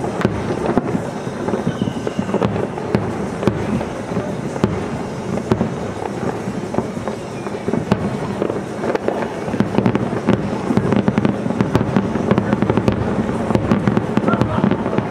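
Aerial firework shells bursting in quick succession: a continuous rattle of bangs and crackles that grows denser over the last few seconds.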